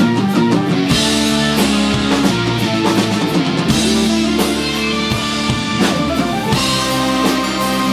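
Live progressive rock band playing, with a drum kit, electric guitar, bass and keyboards: steady drum strikes under sustained held notes.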